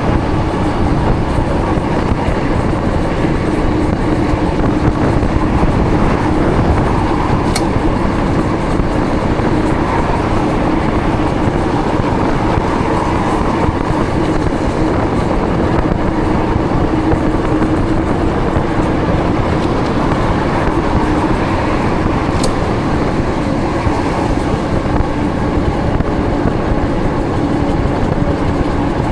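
Steady rush of wind and tyre noise from a Ridstar Q20 electric fat-tyre bike riding along a wet road, with a low steady hum underneath.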